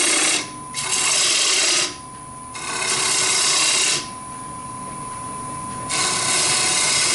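A hand-held woodturning gouge cutting into a wooden plate spinning on a lathe, a loud hissing scrape of shavings coming off. It comes in several cuts with short pauses, the longest a couple of seconds near the two-thirds mark, over a steady faint whine.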